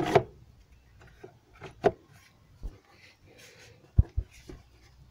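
Plastic airbox and panel air filter being slid and pushed into place by hand: scattered knocks and rubbing, a loud clatter right at the start and two dull thumps about four seconds in.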